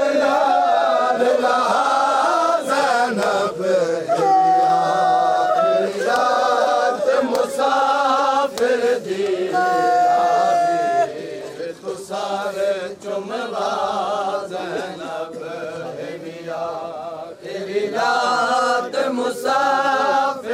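Men's voices chanting a Muharram noha together, with a few long held notes, and sharp slaps of matam (chest-beating) scattered through it. The chanting drops back about halfway through and swells again near the end.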